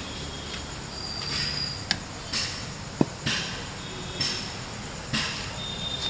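Workshop noise: two sharp metallic clicks and several short hissing bursts that start abruptly and fade, over a steady background hum.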